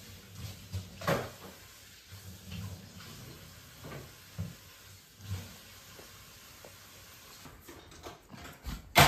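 Light knocks and soft bumps of a baby's hands on a plastic high-chair tray and silicone plate while feeding, with a sharper knock about a second in and a loud knock at the very end.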